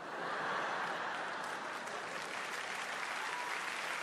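Large live audience applauding, a dense steady clapping that starts right away and keeps up throughout.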